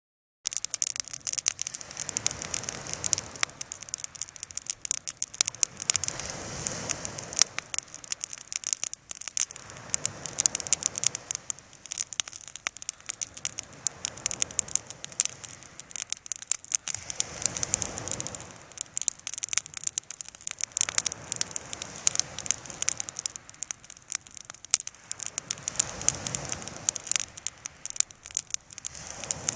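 Bonfire crackling, with a steady stream of sharp snaps and pops. Under it a low rushing sound swells and fades about every three to four seconds.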